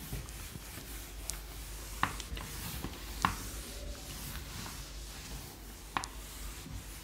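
Hand-held duster wiping marker off a whiteboard: a steady rubbing sound, broken by a few sharp taps, the clearest about two, three and six seconds in.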